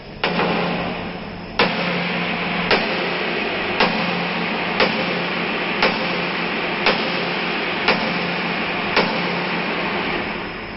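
Sledgehammer striking a heated steel truck chassis rail, about nine blows roughly one a second, to straighten the frame. Underneath runs a loud steady rushing noise with a low hum.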